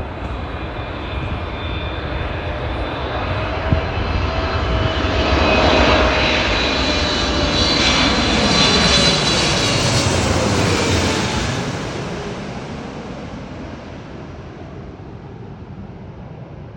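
Boeing 777-300ER on landing approach flying past, its GE90 jet engines rumbling with a high fan whine. The sound swells to a peak about halfway through and then fades away, the whining tones dropping in pitch as it passes.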